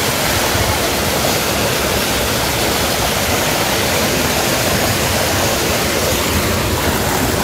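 Steady rush of flowing hot-spring water around the terraced pools, an even hiss with no breaks.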